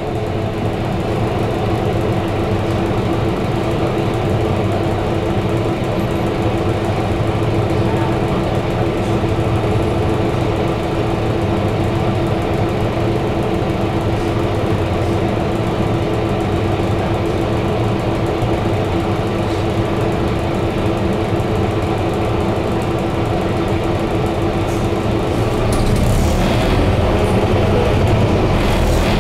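Scania K230UB bus's five-cylinder diesel idling steadily while stopped, heard inside the upper deck. Near the end it rises in level as the bus pulls away.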